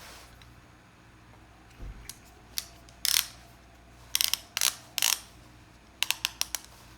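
Leather ratchet belt being worked through its buckle: the ratchet catching in a series of short clicking runs, ending in a quick cluster of about five clicks.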